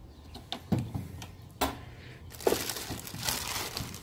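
Several sharp clicks as the plastic latch on a welder's sheet-metal side door is worked and the door swings open, then plastic bags around the coiled welding cables inside crinkling from about halfway on.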